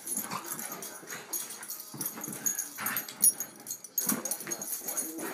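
Two dogs play-fighting, making irregular dog noises mixed with scuffling and clicks, with one sharp louder sound about three seconds in.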